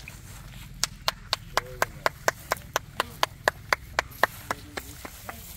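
A rapid, even series of sharp slaps, about four a second, lasting several seconds and fading out near the end.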